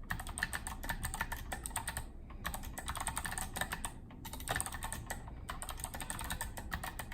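Mercury Rocketeer mechanical keyboard with Kailh Box White clicky switches being typed on: runs of rapid keystrokes, each with a crisp click, broken by brief pauses about two and four seconds in.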